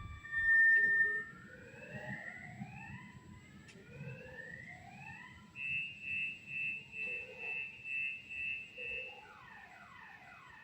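Car alarm cycling through its tone patterns: a steady tone, then repeated rising whoops, then a beeping tone pulsing about twice a second, then falling sweeps near the end.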